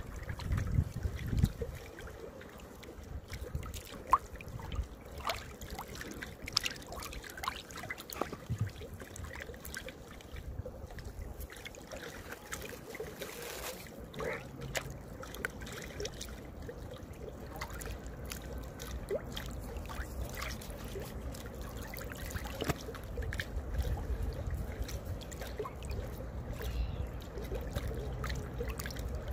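Small river waves lapping and slapping against the bank and driftwood at the water's edge, with irregular little splashes and drips.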